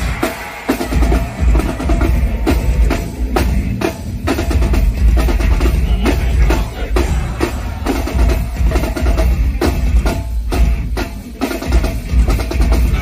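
Heavy metal band playing live, with a drum kit hammering and a heavy kick drum under the bass guitar.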